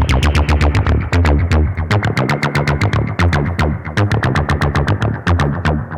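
TB-303-style acid synth bassline played through a wavefolder distortion plugin: a fast, steady run of short, buzzy notes, about eight a second. The brightness of the notes shifts as the line goes on.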